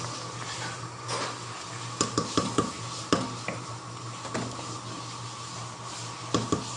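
Wooden spatula stirring rice cooking in a metal pot, knocking and scraping against the pot several times in a quick cluster about two to three seconds in and again near the end, over a steady hum.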